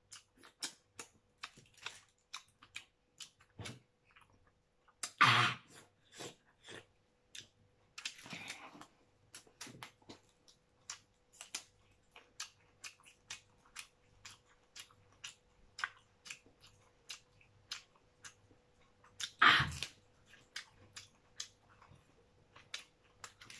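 Close mouth sounds of someone eating spicy cooked crab: steady chewing with many small wet smacks and clicks, and two louder slurping or gasping mouth noises, one about five seconds in and one about twenty seconds in. A faint steady hum sits underneath.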